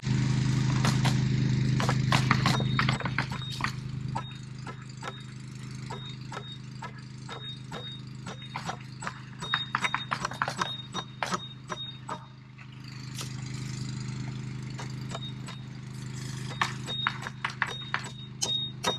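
Irregular light taps and clicks of tools and materials being handled during roofing and masonry work, over a steady low machine hum. The hum is louder for the first three or four seconds, then settles lower.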